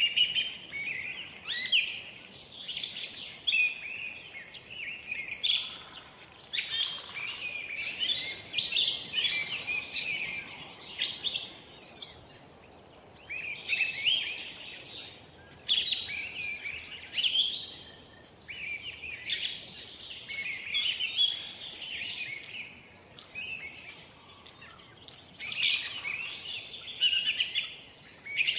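Songbirds singing and chirping, a busy chorus of quick, high twittering phrases with brief pauses between them.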